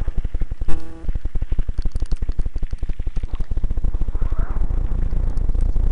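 Rapid, irregular rattling and knocking of a mountain bike and its mounted camera jolting over a rough dirt track. A short, loud pitched sound cuts in about a second in.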